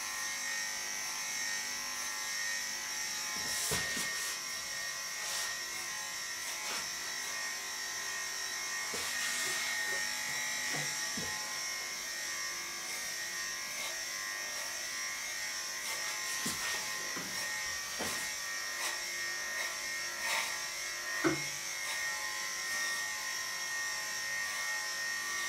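Electric dog grooming clippers running steadily with a high whine as they shave a bichon frise's coat, with scattered light clicks. There is one short louder sound a little over twenty seconds in.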